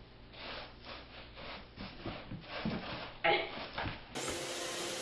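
Wood shavings rustling and scratching in a plastic tray as a kitten scrambles and rolls through them, a run of short scuffling strokes. A brief high cry breaks in about three seconds in, and near the end a steady hiss takes over.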